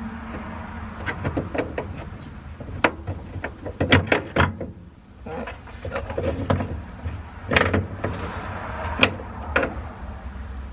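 Irregular sharp metal clicks and clinks as nuts are fitted by hand onto the bolts of a car's trunk latch, over a low steady rumble.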